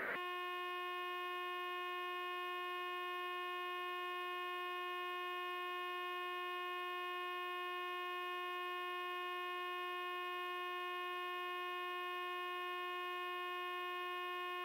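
A steady electronic tone, one held pitch with many overtones, cutting in abruptly and holding at an unchanging level.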